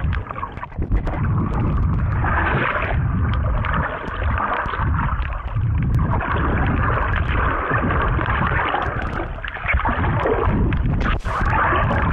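Water churning and splashing around an action camera held by a snorkeler swimming hard against a strong rip current, with a heavy, uneven rumble of turbulence rising and falling with the strokes.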